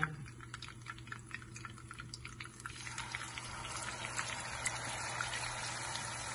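Hot oil in a frying pan giving scattered crackles. About three seconds in, a raw seekh kebab of spiced minced meat goes into the oil and it sizzles steadily around it.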